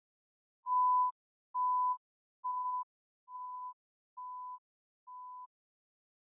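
Six short electronic beeps at one steady pitch, evenly spaced just under a second apart, each quieter than the last.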